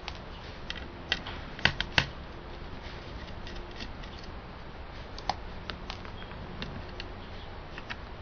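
Small hard plastic and metal clicks and taps from laptop parts and a screwdriver being handled during disassembly, scattered and irregular. The loudest come in a quick cluster of three or four about a second in, with another near the middle, over a steady low background hiss.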